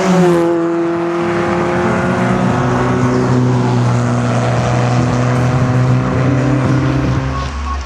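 Cars racing down a drag strip, mixed with background music holding long steady notes that change pitch a few times and stop shortly before the end.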